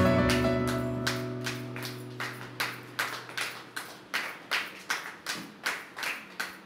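A held music chord fades out over the first couple of seconds. Then hands clap in a steady rhythm, about two and a half claps a second.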